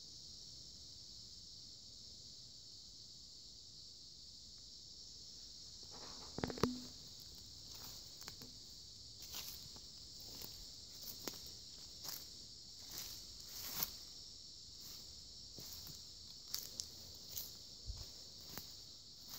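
Steady high-pitched insect chorus, with a louder thump about six and a half seconds in, then footsteps at a walking pace, about one step a second.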